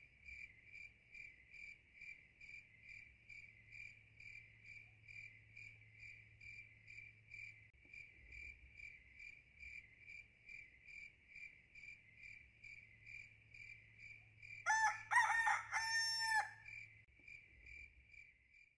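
A cricket chirping steadily, about two and a half chirps a second. About fifteen seconds in, a rooster crows loudly once, for about two seconds.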